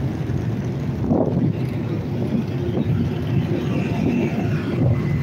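A car and a touring motorcycle driving past on the street, their engines running with a steady low rumble.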